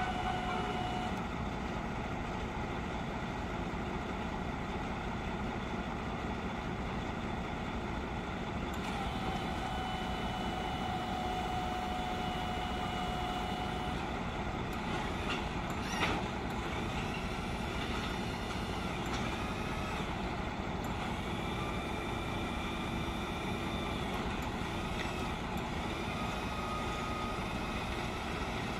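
Heavy truck's diesel engine idling steadily. A thin whine rides over it for several seconds about a third of the way in, wavering high tones come and go in the second half, and there is a single sharp click near the middle.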